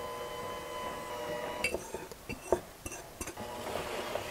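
Electric hand mixer motor humming on low speed as it blends flour into creamed butter. The hum drops out about a second in and a few sharp clinks follow, then the mixer starts up again near the end.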